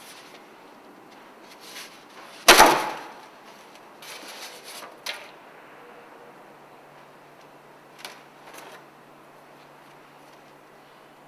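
One loud bang about two and a half seconds in, ringing off briefly, among a few fainter knocks and rubbing sounds over a steady hiss.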